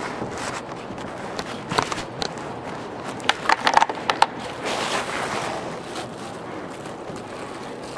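Footsteps and small knocks and clicks of objects being handled at a lectern, over steady room noise. A cluster of clicks comes a little past three seconds in, followed by a short rustle.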